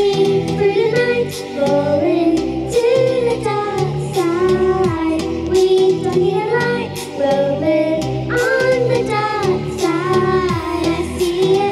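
Two girls singing a song together into handheld microphones, their amplified voices over a karaoke backing track with a steady beat.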